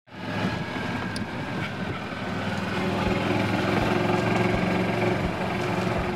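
Golf cart driving along, its motor running steadily.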